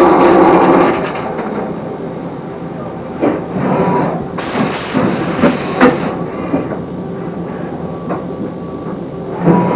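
Two loud bursts of hissing, one over the first second and another from about four and a half to six seconds in, with scattered metallic clanks and knocks between them and near the end.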